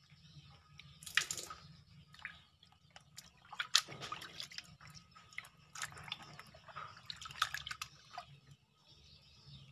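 Water sloshing and splashing in a plastic basin as hands rub and turn a whole fish to wash it, in irregular splashes with drips between them.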